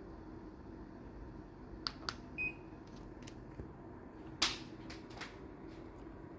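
Daikin FTKV35NVM4 inverter split air conditioner running with a steady low hum, with scattered sharp clicks, the loudest about four and a half seconds in, and one short high beep about two and a half seconds in.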